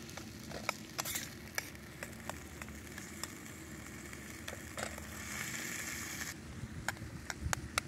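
Tomatoes sizzling in a pan over a wood fire, with scattered sharp pops and crackles. The hiss grows louder about five seconds in, then cuts off suddenly a second later.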